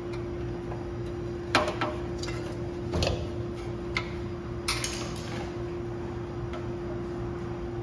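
A steady electrical hum with a few sharp clicks and knocks of hand work on the refrigerator's parts, the loudest about a second and a half in and near the middle.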